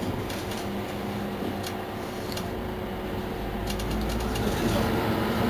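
Mercedes-Benz Citaro C2 city bus running, a steady engine hum with scattered clicks and a short rattle, growing louder toward the end.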